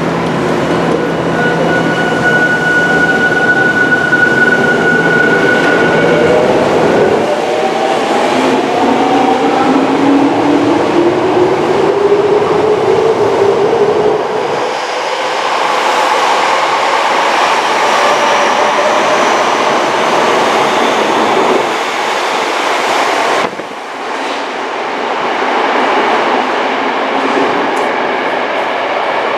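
Tokyo Metro 05 series subway train pulling out of an underground station: its traction motors whine, rising steadily in pitch as it accelerates. Then comes the steady running noise of the cars passing along the platform.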